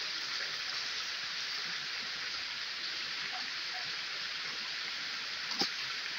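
River water flowing, a steady even rush. One short click about five and a half seconds in.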